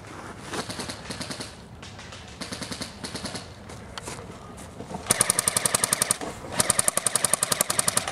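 Airsoft guns firing full-auto bursts: two fainter rattling bursts in the first few seconds, then two louder, closer bursts of rapid evenly spaced shots, about thirteen a second, in the last three seconds.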